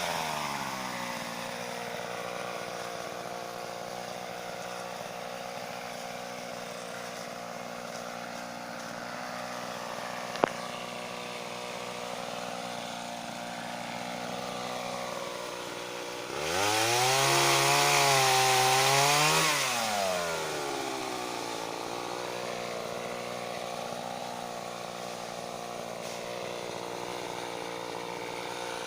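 Mitsubishi TL26 two-stroke engine on a pole saw idling after being throttled down at the start, with one sharp click about a third of the way in. Past halfway it is throttled up for about three seconds, the pitch rising and then falling, and drops back to idle.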